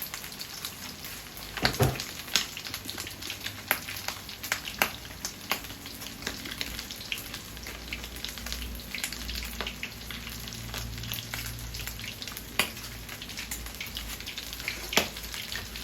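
Chicken lollipops deep-frying in hot oil: a steady sizzle with frequent sharp pops and crackles of spattering oil.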